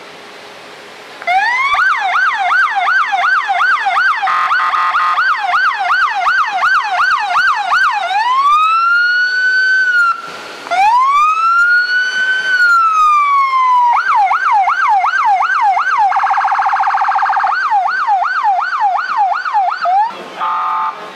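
Sheriff's patrol car electronic siren sounding loudly. It switches between a fast yelp of about two sweeps a second and a slow wail that rises and falls over a few seconds. About three quarters of the way through there is a short burst of very rapid warble, and near the end a brief steady tone.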